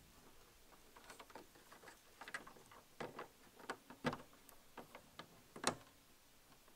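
Faint plastic clicks and rattles of a wedge-base reverse-light bulb being pushed into its socket and the socket fitted back into the tail light housing. A few sharper clicks come through, the loudest near the end.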